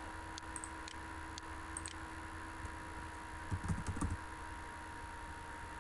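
Scattered faint clicks of a computer mouse and keyboard, with a short cluster of louder clicks and knocks about three and a half seconds in, over a steady faint electrical hum.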